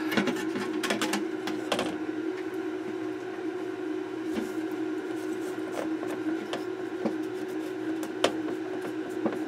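Kenwood GE-622 equalizer's circuit board being handled and laid back down into its sheet-metal chassis: a clatter of clicks and knocks in the first two seconds, then a few isolated light taps, over a steady background hum.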